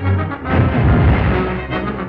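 Orchestral cartoon score led by brass. About half a second in, a loud noisy crash lasting about a second cuts across the music.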